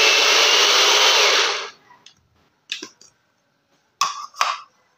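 Electric mini chopper running as it grinds garlic and ginger, with a faint rising whine; the motor cuts off under two seconds in. A few short knocks follow.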